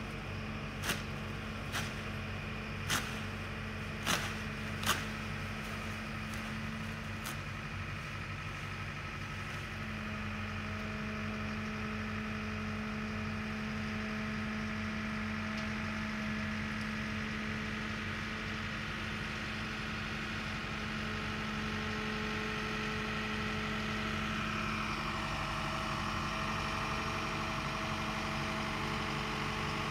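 Heavy engine running steadily with a low hum, over which five sharp knocks sound about a second apart in the first five seconds; near the end a higher part of its note slides upward.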